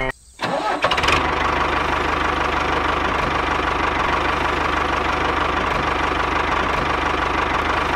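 Small tractor engine sound starting up about half a second in, then running steadily with a rapid knocking rattle and a steady whine over it.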